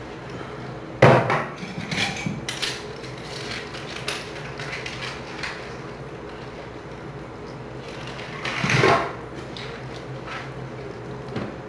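Hand-washing dishes at a sink: plastic containers and dishes knocking and clattering as they are handled and scrubbed with a soapy sponge. A sharp knock comes about a second in, then scattered light clicks, and a longer rustling scrub about three quarters of the way through.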